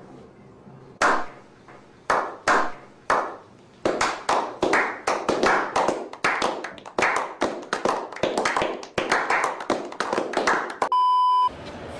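A slow clap by several people: single claps about a second apart that quicken into fast, steady clapping. Near the end the clapping stops and a short beep tone sounds for about half a second.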